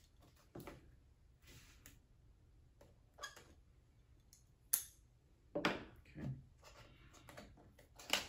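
Small cardboard toy box being slit open with a knife at its taped seam and handled: a series of short scrapes and light clicks, with a sharp click a little before the middle and louder scraping a little past it.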